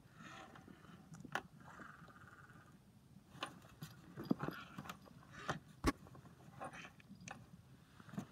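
Scattered light taps, clicks and scratches of a kitten batting at a plastic singing-fish toy, with one sharper knock about six seconds in.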